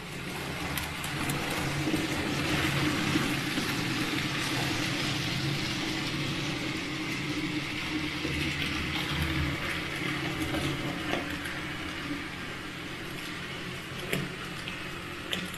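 TT-scale model freight train running on the layout: a steady electric-motor hum with the rushing noise of small wheels rolling on the rails, swelling about a second in and easing after the middle, with a couple of sharp clicks near the end.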